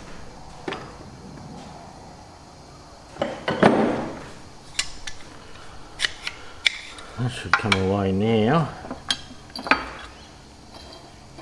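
Metal clinks and knocks of hand tools and loose bolts against a Chamberlain 9G tractor's gearbox housing as the front bearing housing is worked free. A short wavering hum comes a little past the middle.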